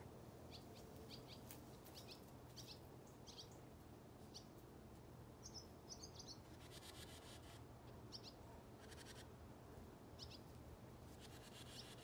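Faint wild birds chirping, a string of short, high, falling chirps spaced irregularly. Three brief rasping sounds come in about seven seconds in, at nine seconds, and near the end.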